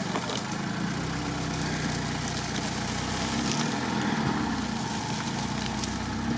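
Lada Niva engine running steadily at low revs on light throttle as the car crawls through swampy reeds.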